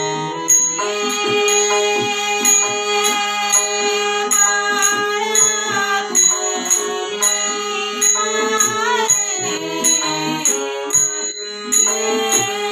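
Instrumental interlude of a Marathi devotional song: sustained melodic tones over a steady beat of drum strokes with regular high metallic jingling, without singing.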